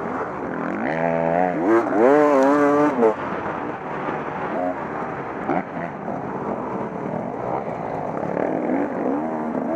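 Off-road motorcycle engine revving up and down as the bike is ridden, its pitch wavering and climbing hardest about one to three seconds in.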